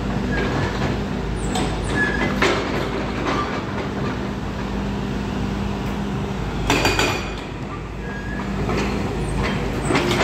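Volvo 210 excavator's diesel engine running steadily, with knocks and clanks at intervals as it works stone, including a cluster of ringing metallic clanks about seven seconds in.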